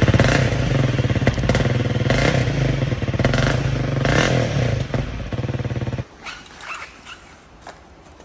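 Honda CRF300L's single-cylinder four-stroke engine running on its stock exhaust with an even, pulsing idle and a few brief louder moments, cutting off suddenly about six seconds in. A few faint clicks follow.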